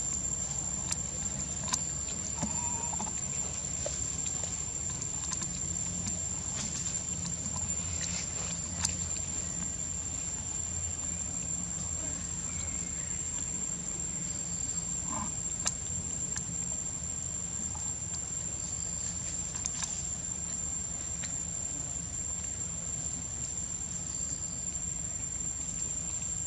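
Insects droning steadily at one high pitch over a low steady rumble, with a few faint clicks and rustles scattered through.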